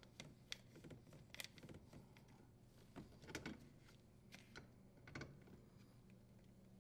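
Near silence with a few faint clicks and scrapes as Channellock pliers grip and tighten a brass elbow fitting onto a dishwasher's water inlet valve.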